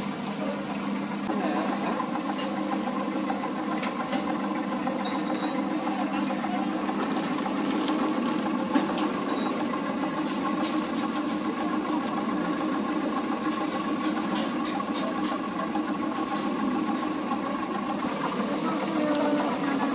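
Steady mechanical drone of a machine running, with a few faint clicks and one brief sharp tick.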